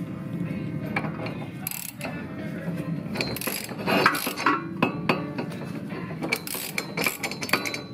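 Half-inch ratchet clicking in irregular runs as it turns an inner tie rod tool, unscrewing a Honda Civic's inner tie rod from the steering rack; the rod is still on tight.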